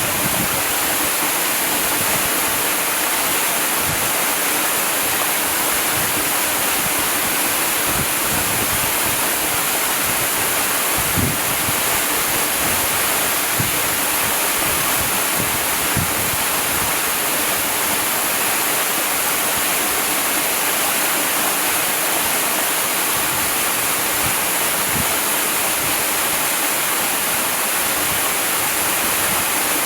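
Waterfall: water falling and splashing in a steady, dense rush.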